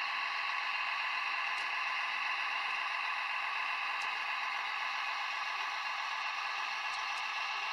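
Model diesel locomotive's DCC sound decoder playing a steady diesel engine sound through its small onboard speaker, thin and without bass, with a few faint clicks of wheels over the track.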